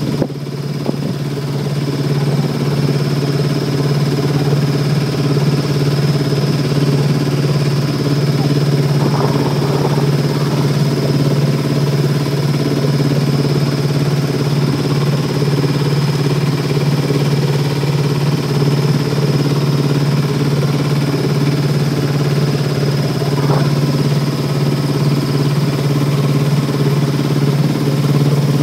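A small fishing boat's engine running steadily as the boat motors along, a loud, even low hum with a thin high whine above it.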